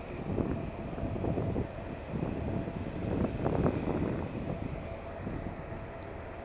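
Wind buffeting the microphone on a ferry's open deck in irregular gusts, over a steady faint hum from the ship. The gusts ease off in the last couple of seconds.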